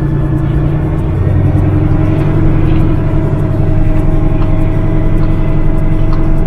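Semi-truck tractor's diesel engine running under way as the bobtail tractor pulls off and turns, heard from inside the cab: a steady low drone that grows a little louder about two seconds in.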